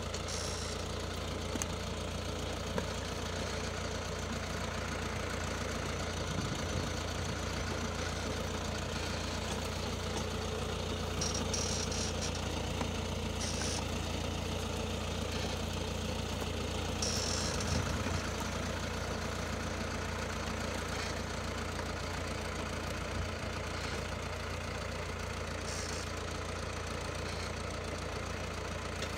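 Diesel farm tractor engine running steadily at low field speed while it pulls a sugarcane planter, with a few short higher-pitched bursts over the engine noise.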